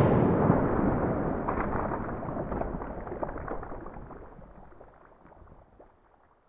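Fading tail of an explosion-style sound effect from a logo intro: a rumble with scattered small crackles that dies away steadily over about five seconds.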